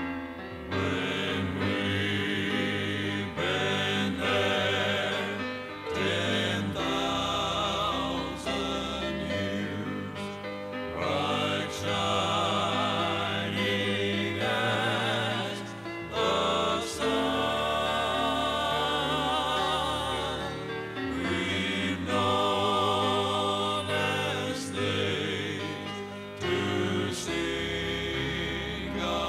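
Gospel vocal group singing with wavering vibrato on held notes, from a 1983 cassette recording.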